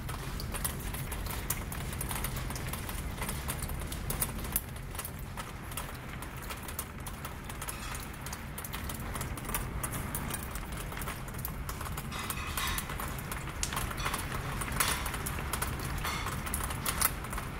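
Heavy rain in a gusting windstorm: a steady rush of rain and wind with many irregular sharp taps of drops striking the window and nearby surfaces, the patter growing busier from about twelve seconds in.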